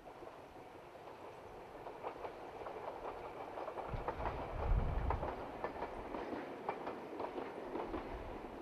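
A train passing, its wheels clicking over the rail joints over a steady rumble that swells about halfway through.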